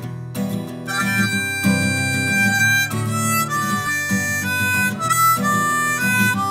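Instrumental opening of an acoustic country-style song: strummed acoustic guitar, with a harmonica playing held melody notes from about a second in.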